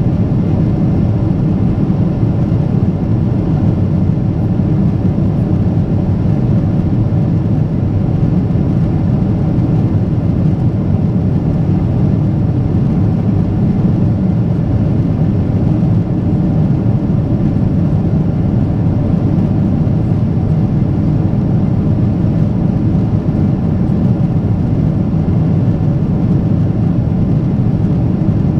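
Boeing 777-300ER's GE90 turbofan engines running at high thrust, heard inside the cabin as a loud, steady, deep rumble mixed with airflow noise.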